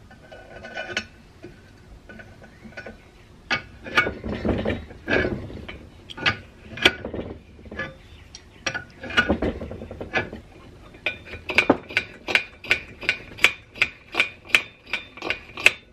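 Clinks, knocks and scrapes of an antique brass blowlamp's metal parts being handled and its valve spindle fitted. About two thirds of the way in, a steady run of quick strokes begins, about three a second, each with a short squeak: the blowlamp's hand air pump being worked, without the lamp holding pressure.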